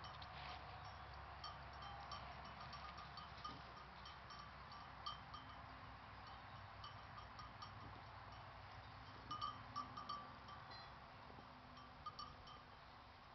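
Near silence with faint, scattered tinkling of small bells, a little busier about two-thirds of the way in.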